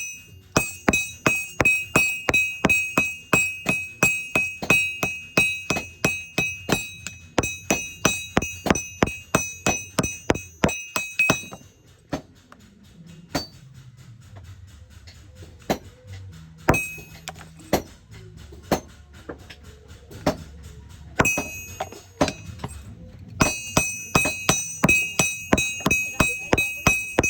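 Hand hammer striking hot metal on an anvil in a steady rhythm, about three blows a second, each blow ringing high and metallic. About 11 seconds in the hammering stops for a quieter stretch of scattered lighter taps, then picks up again at the same pace near the end.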